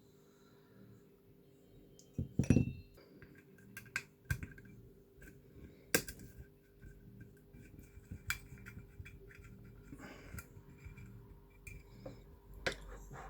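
Small parts of a dismantled reversing camera being handled: scattered clicks, knocks and light clinks. The loudest are a short clatter about two and a half seconds in and a sharp click about six seconds in.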